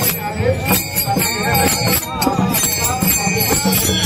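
Devotional procession music: many small hand cymbals jingling and clashing in a steady rhythm, with voices singing.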